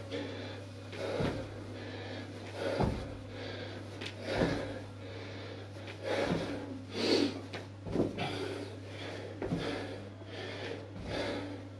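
Sneakers thudding on a hard floor during split squat hops, a landing about every second and a half, with forceful breathing over a steady low hum.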